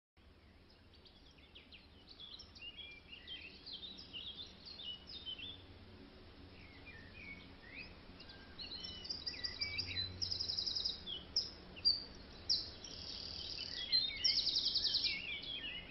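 Songbirds chirping and calling: scattered short whistled notes and sweeps, then louder rapid trills about nine seconds in and again near the end, over a faint steady outdoor background.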